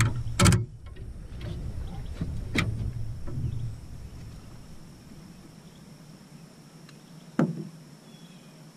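Sharp knocks and splashing as a largemouth bass is brought to the side of an aluminum jon boat and landed by hand, over a low rumble that stops about four seconds in. One louder knock comes about seven seconds in.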